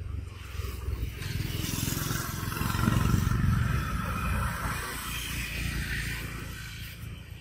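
A low, noisy rumble that swells to its loudest about three seconds in and then slowly fades.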